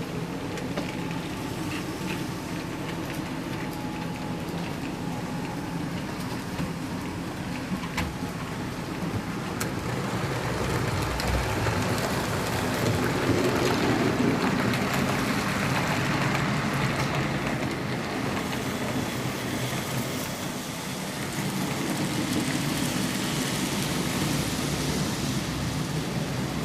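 HO scale model trains running on the layout: a continuous rolling rumble and rattle of metal wheels on the track, swelling for several seconds from about eleven seconds in as a train passes close, with a single click near eight seconds.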